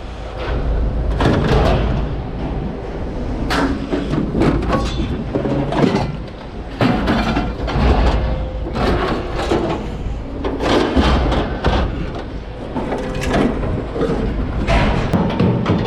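Mixed scrap iron being unloaded by hand: pieces of metal thrown onto a scrap pile, clanking and clattering irregularly. A steady low rumble runs underneath.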